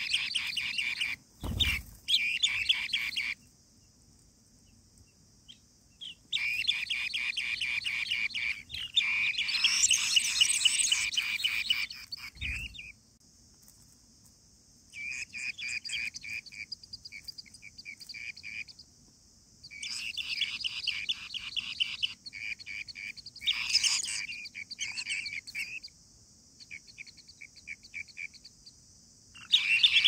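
Asian green bee-eaters calling in bursts of rapid, trilling chirps, each burst lasting a few seconds with short silences between. Two low thumps come about a second and a half in and about twelve seconds in.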